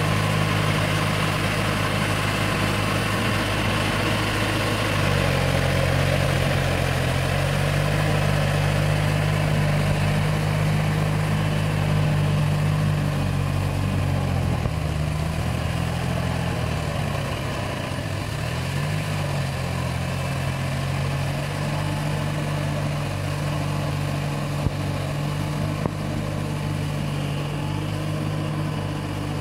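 Small tractor's diesel engine running steadily under load as it pulls a rotary tiller through a flooded paddy field. Its note steps up about five seconds in and wavers briefly about halfway through.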